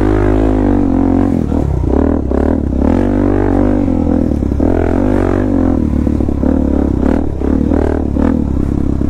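Suzuki DR-Z400S single-cylinder four-stroke dual-sport engine, fitted with a slip-on exhaust, running under load on a dirt trail. The revs rise and fall repeatedly as the throttle is worked.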